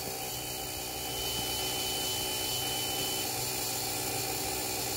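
School bus dashboard switched on with the key, engine not started: a thin, high, steady buzzer tone sounds for about three seconds, the wait-to-start buzzer by the owner's guess. Under it runs a steady mechanical hum that grows a little louder about a second in.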